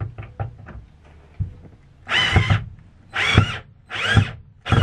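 Cordless drill/driver running a screw into a wooden frame in four short bursts about a second apart, after a few light clicks.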